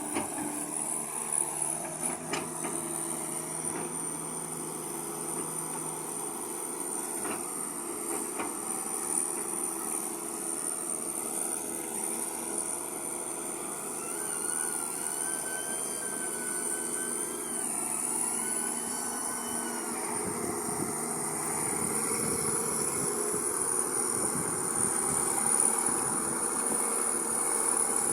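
Hydraulic excavator running steadily, its engine note with a thin high whine on top and some tones shifting in pitch around the middle as the machine works.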